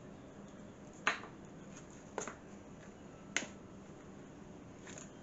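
Three sharp knocks, about a second apart, and a fainter one near the end, as pieces of raw beef short rib are turned over by hand and knock against the mixing bowl.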